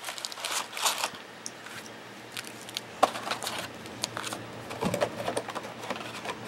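Foil-wrapped Panini Prestige football card packs crinkling and clicking against each other as a handful is pulled from the box and laid down in stacks on a table. Irregular rustles with a few sharper taps, one of them about three seconds in.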